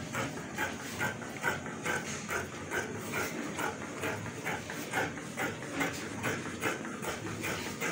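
Fabric shears snipping through cloth along a marked line, a steady run of cuts about two a second.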